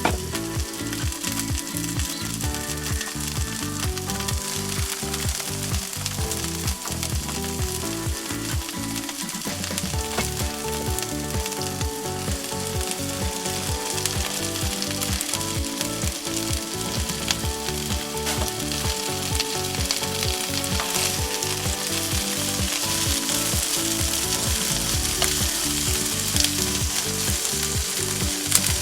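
Salmon and vegetables sizzling and frying in a skillet, a steady hiss that grows louder toward the end.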